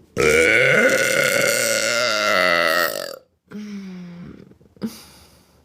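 A woman's long, loud burp lasting about three seconds, followed by a shorter, quieter one.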